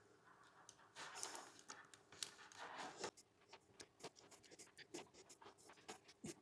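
Faint handling noise: scratching, rubbing and many small clicks as hands work the lines and plastic parts of a kiteboarding control bar, with a couple of longer scratchy swishes in the first half.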